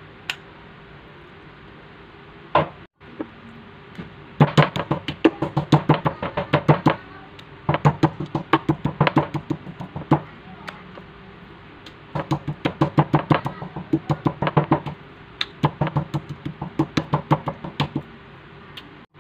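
Metal meat mallet pounding thin slices of pork loin on a wooden cutting board to tenderize them: four bouts of rapid knocking, about six or seven blows a second, each bout lasting two to three seconds.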